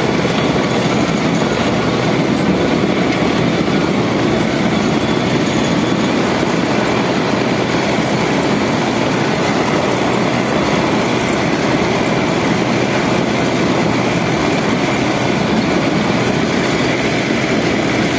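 DT-75 crawler tractor driving in high gear, its SMD diesel engine running steadily under load together with the clatter of its steel tracks, heard from the cab.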